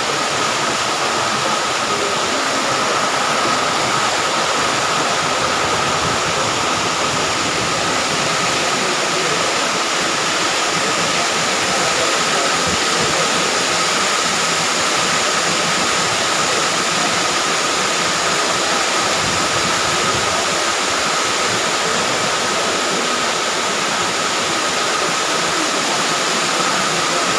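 Steady, loud rush of water from heavy rain and flooding, with a thin steady high tone running through it.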